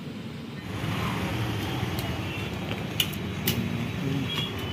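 Steady motor-vehicle and traffic noise that grows louder about a second in, with two sharp clicks half a second apart about three seconds in.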